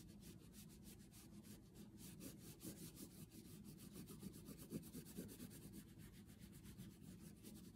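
Faint, quick, repeated scratchy strokes of a red oil pastel rubbed over paper, coloring in a shape.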